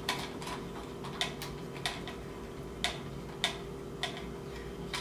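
Irregular sharp clicks and taps, about two a second, as a plastic table-mount screw is turned by hand against the threaded socket of a field monitor and is not catching. A steady low hum runs underneath.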